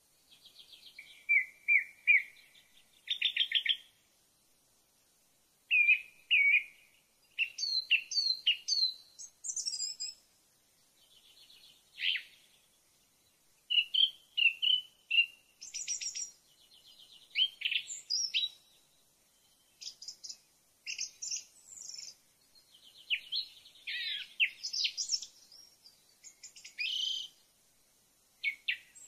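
Songbirds singing: varied short chirps, rapid trills and quick whistled phrases, with pauses of a second or two between them.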